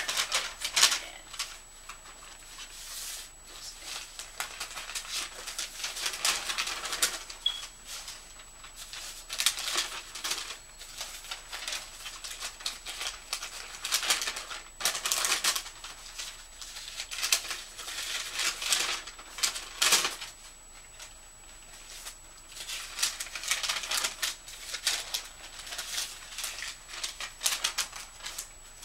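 Paper rustling and shuffling in irregular flurries as stacks of letters, envelopes and cards are handled and sorted by hand.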